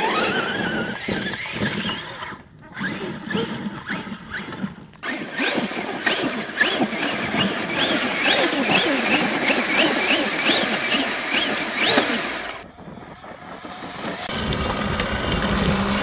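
Electric RC monster truck's motor whining up and down in pitch as the throttle is pumped, about two rises a second at its busiest, with the tyres churning through loose dirt. The sound breaks off abruptly a few times.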